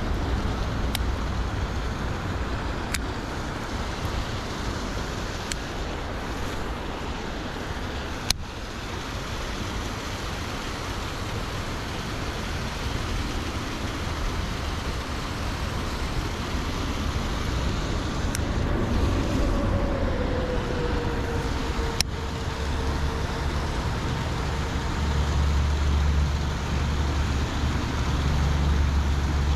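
Steady outdoor noise of rushing river water and distant road traffic, with a low rumble that swells near the end. A few sharp clicks stand out, and about 18 seconds in a faint tone slides down in pitch and holds for several seconds.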